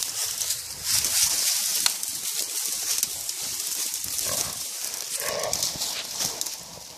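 Dry scrub and sticks crackling and rustling as a pig is held by the ear by a pig dog and dragged through the brush. The pig cries out briefly twice, about four and five seconds in.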